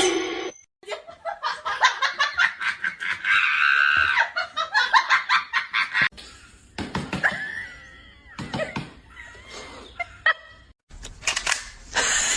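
Person laughing in quick repeated bursts, followed by a few short high sounds that glide in pitch.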